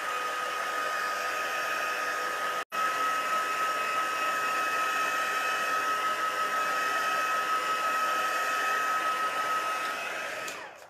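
Handheld embossing heat tool blowing hot air steadily, its fan motor giving a steady whine over the rush of air, drying wet ink on cardstock. The sound cuts out for a split second about three seconds in, and the motor winds down, its whine falling, near the end.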